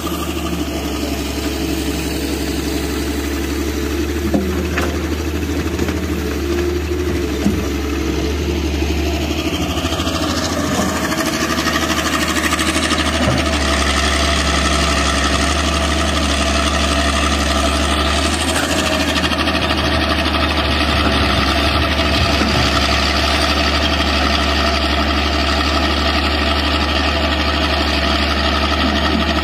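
Hitachi hydraulic excavator's diesel engine running steadily while it works, getting a little louder about halfway through. A couple of brief knocks early on.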